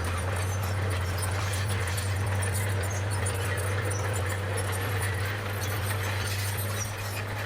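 Bulldozer's diesel engine running steadily with a deep, even hum.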